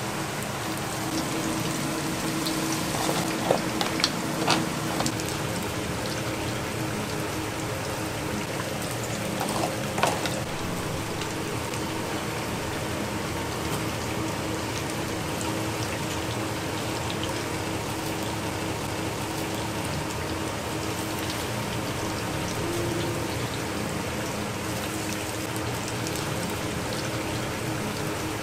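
Steady hiss of a street-food stall kitchen, with a few sharp clinks, three of them in the first ten seconds, over a low steady hum.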